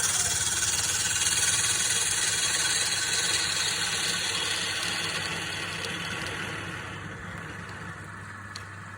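Wood lathe running with a steady motor hum while a turning tool cuts the spinning wood with a loud hiss; the cutting fades out about two-thirds of the way through, leaving the motor running.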